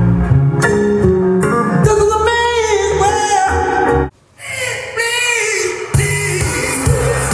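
Soul song with a sung melody played back through Technics SB-6000 floor-standing speakers on a Sansui G-7000 receiver, with a heavy bass line. The music drops out for a moment about four seconds in, and the bass comes back strongly near six seconds.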